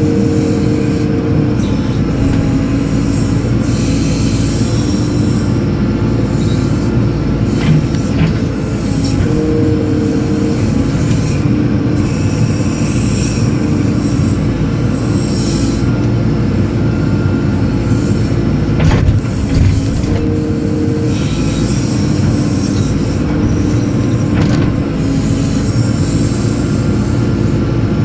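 A JCB 4CX backhoe loader's diesel engine runs under load while it digs. A higher steady whine comes in briefly three times, about ten seconds apart.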